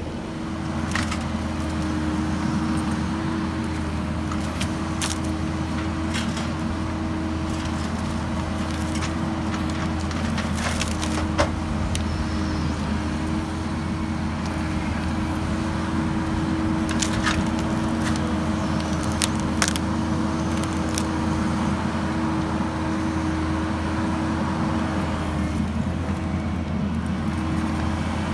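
Diesel engine of a Kubota SVL75 compact track loader running steadily as it carries logs in its grapple, with sharp knocks and cracks of wood now and then.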